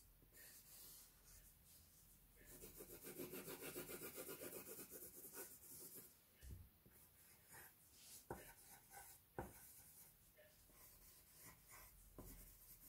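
Faint pencil scratching on paper: a quick run of back-and-forth shading strokes for a few seconds, then slower single strokes with a few light ticks.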